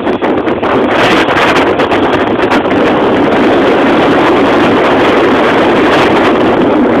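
Steady, loud rush of wind and road noise from a moving vehicle, with wind buffeting the microphone and crackling briefly about a second in.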